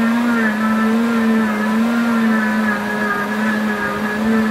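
Pampered Chef Deluxe Cooking Blender running loud on its grind cycle, grinding quick-cooking oats into oat flour while a tamper pushes them down; the motor holds a steady whine that wavers slightly in pitch.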